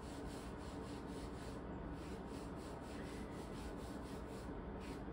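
A wipe rubbed briskly back and forth on the bare skin of a forearm, scrubbing off eyeshadow swatches. A faint, even scrubbing in quick repeated strokes.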